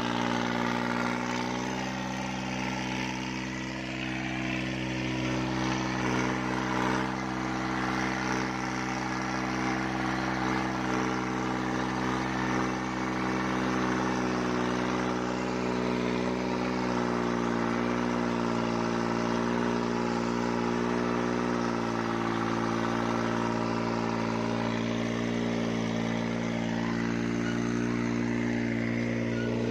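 New Holland 3630 tractor's three-cylinder diesel engine running steadily under load while pulling a disc harrow. Its engine speed shifts slightly a few times.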